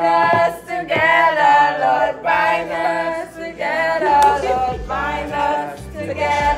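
A group of voices singing together a cappella, holding long notes that slide up and down.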